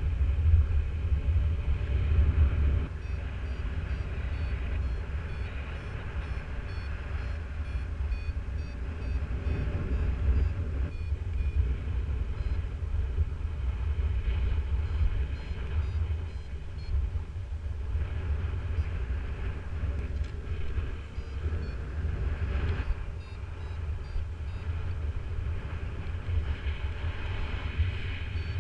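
Wind buffeting the microphone in flight, a steady low rumble, with a flight variometer's short high beeps repeating faintly underneath, the climb-rate signal.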